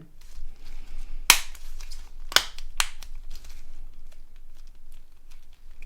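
Sharp clicks and small tapping of hard plastic phone parts being handled and pressed: three loud clicks, about a second in, a little past two seconds and near three seconds, with fainter ticks and rustling between.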